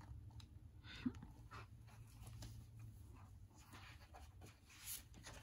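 Faint rustling and handling of a picture book's paper pages, with a page turned near the end, over near-silent room tone.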